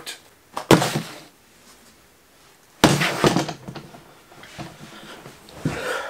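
Two loud thumps about two seconds apart, each with a short noisy tail, and a softer one near the end.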